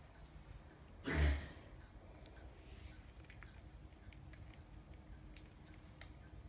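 A single short thump about a second in, followed by faint scattered light ticks.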